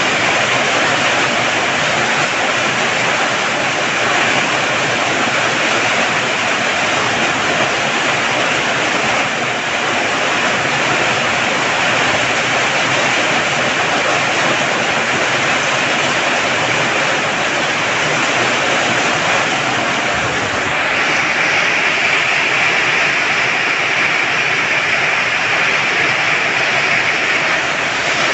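Heavy rain pouring down steadily, a dense even hiss that turns a little sharper about two-thirds of the way through.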